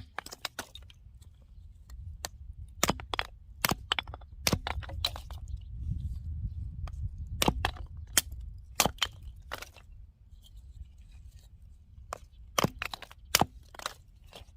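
Firewood being chopped: irregular sharp cracks and knocks of an axe striking and splitting wood, some coming in quick clusters.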